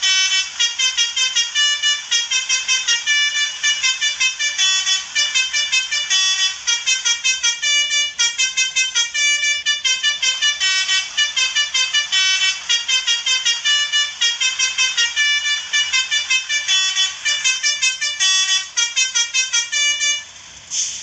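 Basuri telolet multi-trumpet bus horn playing a fast tune of short horn notes, several a second, hardly pausing for nearly twenty seconds.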